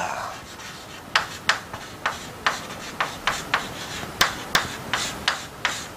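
Chalk writing on a chalkboard: a string of short taps and scrapes, about three a second, one for each stroke, starting about a second in.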